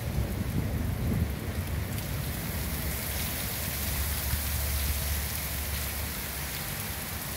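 Heavy rain pouring onto open water and wet paving, a steady hiss that grows brighter a few seconds in, with a low rumble underneath.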